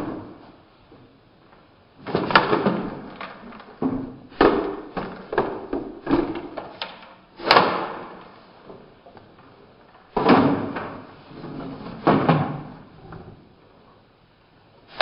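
An airsoft rifle being handled and reloaded: a string of heavy knocks and clatters as magazines are pulled and seated and the gun and gear are knocked about, loudest about 7.5 s in.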